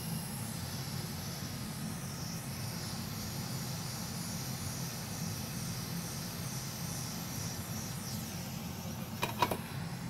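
Steady low hum and hiss of workbench machinery, with a couple of sharp clicks near the end as the handheld UV curing lamp is lifted away from the circuit board.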